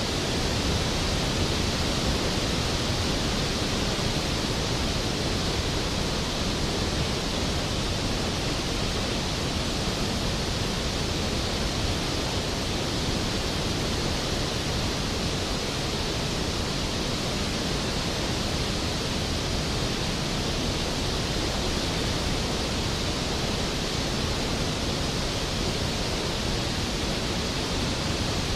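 Skógafoss waterfall: a large volume of water plunging onto the pool below, a steady, dense rushing with no breaks.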